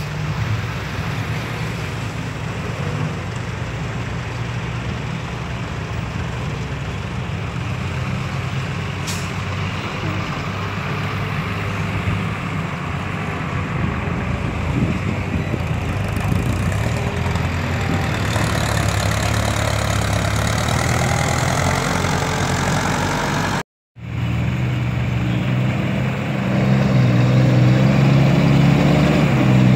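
Diesel engines of Isuzu six-wheel dump trucks running steadily at low revs. The sound cuts out for a moment about two-thirds of the way through. It comes back as a closer truck engine, which grows louder near the end.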